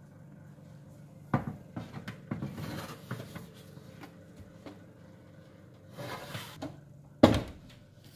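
A metal baking tray clattering and scraping as it is slid onto the oven's rack runners, followed near the end by the oven door shutting with one loud thud. A low steady hum runs underneath.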